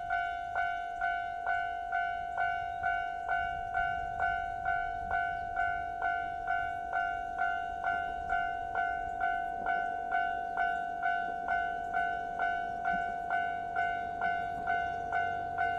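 Japanese level-crossing warning alarm ringing steadily at about two strikes a second, each strike a clear tone that decays before the next. Near the end a low rumble builds under it as a train approaches.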